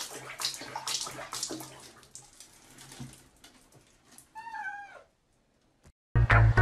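Irregular scuffling noise, then one short cat meow that falls in pitch, about four and a half seconds in. Upbeat music starts near the end.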